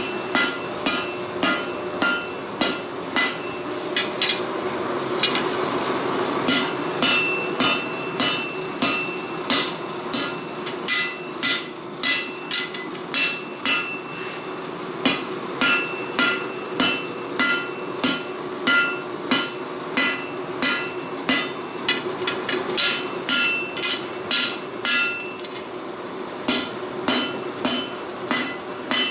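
Hand hammer striking hot steel on an anvil while forging a cutlass blade: a steady run of ringing blows at about two to three a second, with a break about four to six seconds in and a shorter one near the end. A steady hum runs underneath.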